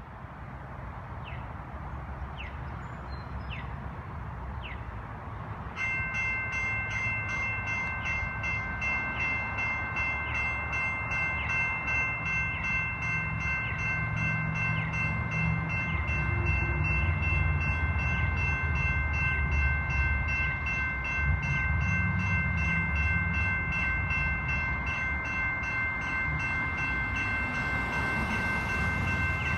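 Railway crossing warning bell starts ringing about six seconds in, a fast, steady ringing that keeps going as the crossing signals activate. A low rumble builds under it through the second half.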